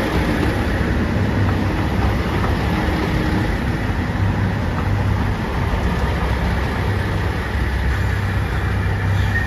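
Diesel limited express train moving slowly past along the platform, its engines running with a steady low hum.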